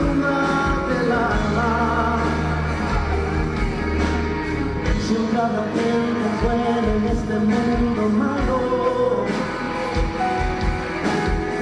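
Live band music with a male lead singer and backing singers singing in Spanish over drums and electric guitar.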